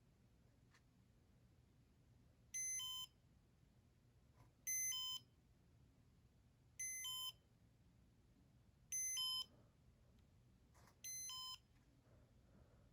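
Casablanca Comfort Touch ceiling fan's electronic control beeping: five short beeps about two seconds apart, each a quick run of stepped high tones, as the fan steps through its settings in test mode.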